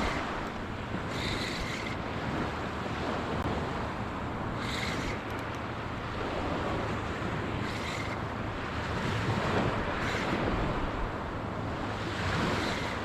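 Surf washing onto the beach, with wind buffeting the microphone. A short, faint high squeak comes about every three seconds.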